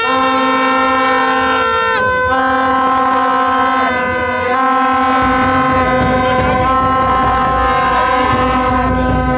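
Handheld horns blown by protesters in long, steady, overlapping blasts on one low note, with short breaks about two seconds in and again around four seconds.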